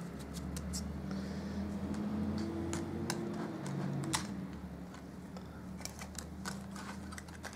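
Scattered light clicks and taps of thin metal framelit cutting dies being handled and put away, over a low steady hum.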